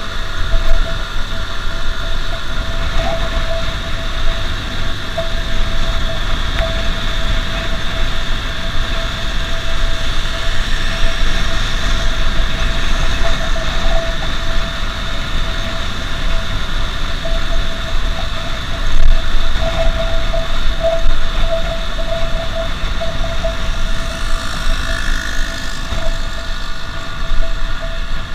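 Motorcycle cruising at a steady speed: engine running with a steady whine over heavy low wind rumble on the bike-mounted microphone.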